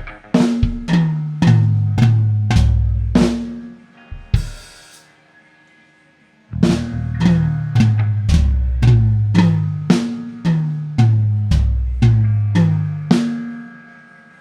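Drum toms struck one after another, about two hits a second, each ringing with a pitch that steps down from the high tom to the floor tom, as the kit is sounded out. A brief cymbal splash comes about four seconds in, then a second, longer run of tom hits from about six and a half seconds.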